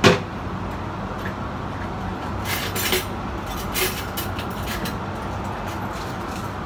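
A sharp knock right at the start, then a steady rumbling background noise with a few brief rustling sounds about two and a half to four seconds in.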